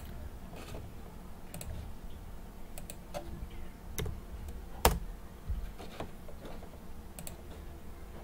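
Scattered computer keyboard keystrokes and mouse clicks, a few at a time, with one louder click about five seconds in, over a low steady hum.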